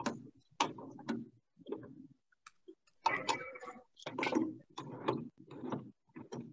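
Repeated clicks and knocks, about two a second, from the plastic and metal parts of a serger being handled and fitted back together. About three seconds in there is a longer rattle.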